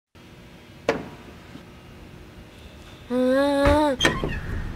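A sharp knock about a second in. Then a person hums one held note for under a second, sagging in pitch at the end, followed by a click.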